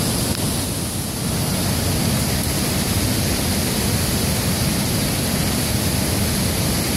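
Steady rushing of river water, a constant even noise heavy in the low end.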